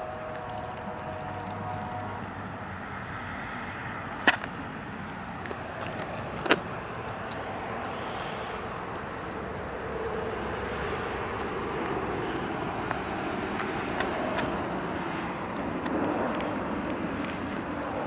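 A dog's metal chain leash jangling over steady outdoor background noise, with two sharp knocks about two seconds apart near the start.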